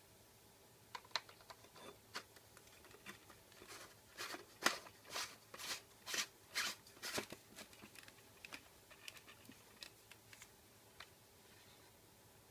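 A run of small clicks and scrapes from hands handling small objects, thickening into a quick series of sharper rustling strokes about four seconds in and thinning out again after about seven seconds.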